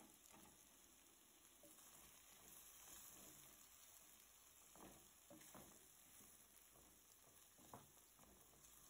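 Near silence, with faint stirring of chicken and onion pieces in a metal pan with a wooden spoon: a few soft scrapes and knocks, the sharpest one near the end.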